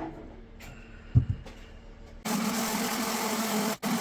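A short knock about a second in, then an electric sander switches on a little over two seconds in and runs steadily with a low hum, sanding the edges of a wooden bench top.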